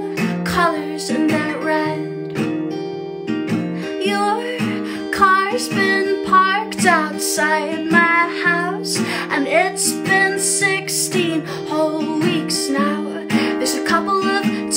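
A woman singing a song while strumming her acoustic guitar.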